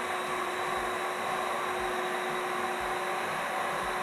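Window-cleaning robot running on the glass: its suction fan gives a constant hiss with a faint steady hum underneath.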